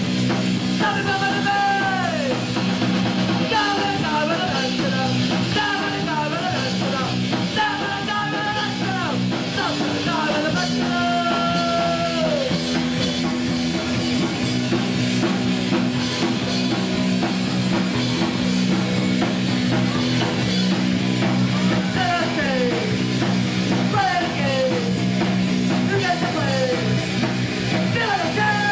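Live punk rock band playing: distorted electric guitars, bass and drums with a shouted vocal, and repeated downward pitch slides over the sustained chords.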